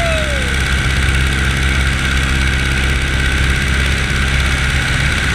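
Steady drone of a wing-walking biplane's propeller engine in flight, mixed with heavy wind rush over the microphone.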